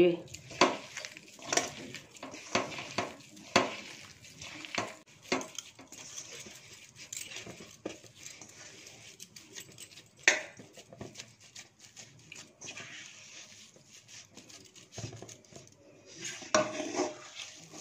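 Boiled potato and spices being mashed by hand in a stainless steel bowl: irregular clicks and taps of hand and bangles on the steel, more frequent in the first half and fainter in the middle, with one louder knock about ten seconds in.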